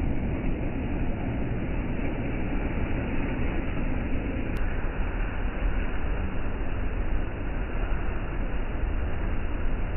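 Ocean surf breaking on a sandy beach: a steady rushing noise with a heavy low rumble.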